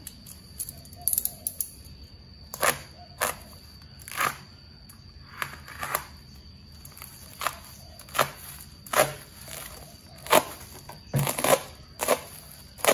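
Layered plastic parcel wrapping crackling and snapping as a cutter knife slits and pulls it open: a series of sharp, irregular crackles, sometimes in quick clusters.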